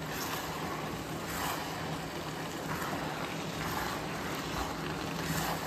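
Steady hiss of grated carrots cooking down in a kadhai of nearly dried-off milk over a gas flame, with a few soft strokes as the thick gajrela is stirred.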